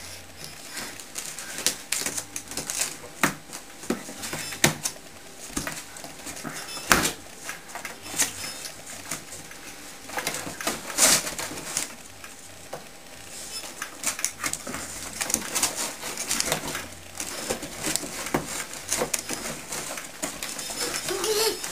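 Cardboard toy box being cut and pulled open by hand: an irregular run of sharp clicks, scrapes and crinkling cardboard.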